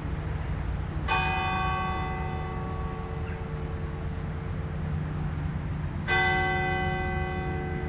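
Basilica church bells tolling slowly for a funeral: two strokes about five seconds apart, each ringing out long over the lingering hum of the bells.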